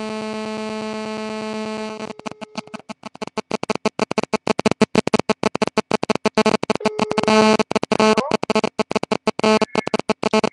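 Nokia mobile phone on speakerphone during a call, its loudspeaker giving a steady electronic tone for about two seconds, then a rapidly chopped, stuttering electronic sound with brief tone fragments.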